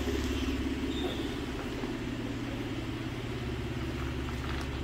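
Volvo XC90 engine idling steadily, a low even hum.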